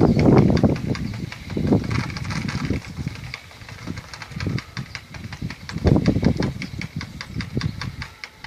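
An engine running slowly with a steady ticking about six times a second, with irregular low gusts, loudest near the start and again about six seconds in.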